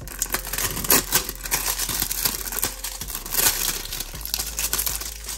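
Clear plastic wrapping being torn and peeled off a small cardboard palette box by hand: irregular crinkling and crackling, loudest about a second in and again around three and a half seconds.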